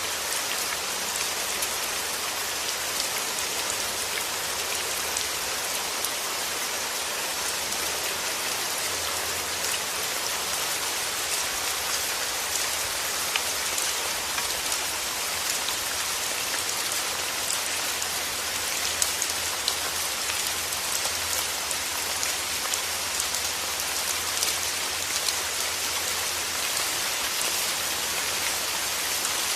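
Steady rain falling on a surface, a dense even patter with many small individual drops ticking through it.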